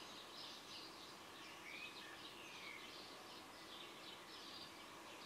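Faint birdsong: small birds chirping and twittering in many short high calls, with a couple of longer whistled glides about two seconds in, over quiet room tone.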